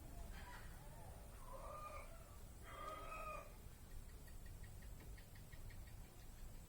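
A cat meowing faintly three times in the first few seconds, the last call the loudest, followed by a quick run of faint, evenly spaced ticks.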